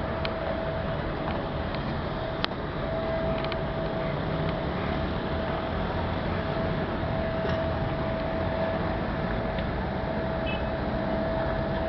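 Steady rumble of a docked car ferry's engines and the vehicles coming off it, with a constant thin whine and one sharp knock about two and a half seconds in.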